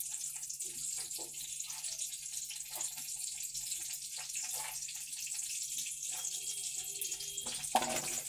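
Steady hiss of water running from a kitchen tap, with a faint low hum underneath and a few soft knocks.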